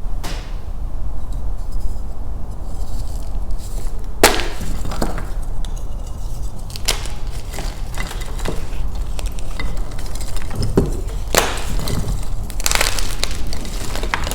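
A block of Beasty gym chalk crushed by hand close to the microphone: crunchy, snappy cracks, the sharpest about four seconds in and several more after, with a crumbly crackle between them.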